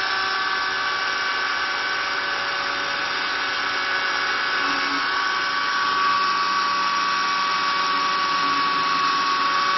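Handheld 6-inch mini chainsaw running steadily with a high electric-motor whine as it cuts the top of a pumpkin.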